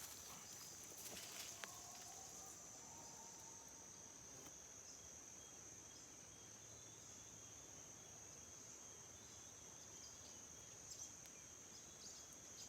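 Faint, steady high-pitched drone of insects, with a few soft clicks about a second in.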